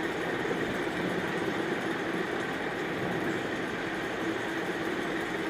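Flat beans and potatoes with spices frying in a pan over the stove, a steady even noise with no distinct knocks.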